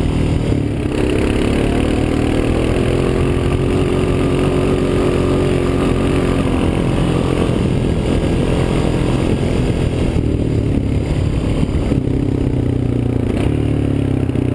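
Honda TRX 350 FourTrax ATV's single-cylinder four-stroke engine running while riding across a field. Its pitch rises about a second in and holds, eases off around ten seconds in, then picks up again near the end.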